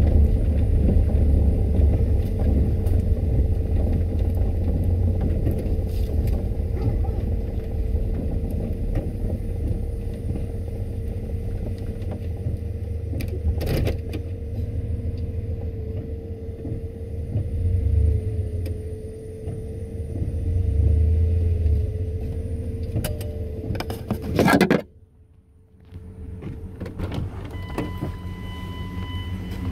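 Cab interior of a 1996 Chevy under way: a low engine and road rumble with a steady hum, which cuts out suddenly about 25 seconds in. Near the end a steady high tone sounds.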